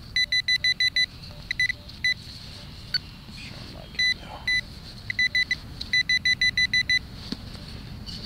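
Garrett Pro-Pointer pinpointer beeping as it is probed through the soil of a dug hole: short, high-pitched beeps at one steady pitch, in quick runs of several a second broken by pauses. The beeping is its alert that it is picking up buried metal in the hole.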